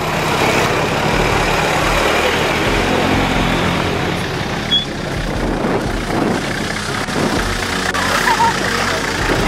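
Four-wheel-drive vehicles' engines running close by as the vehicles pass along an off-road track one after another.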